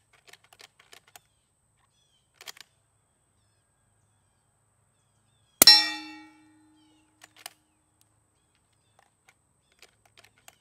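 One suppressed shot from a 300 Blackout bolt-action rifle with a Griffin Armament DL7 suppressor, with a steel target hit at once and ringing out loudly, its lowest tone lasting about a second and a half. The steel's clang is far louder than the suppressed shot.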